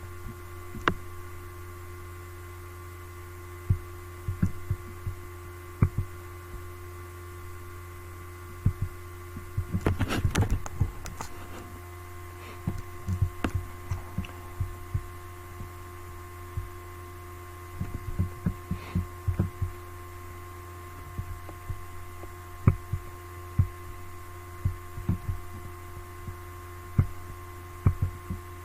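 A steady electrical hum with several fixed high tones over it, broken by scattered soft clicks and knocks, with a busy cluster of them about ten seconds in.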